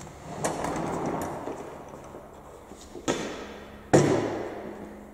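Adjustable weight bench being moved out of the way and an exercise mat put down on the gym floor: a knock about half a second in, then two heavy thuds about three and four seconds in, the second the loudest, each ringing on briefly in the hall.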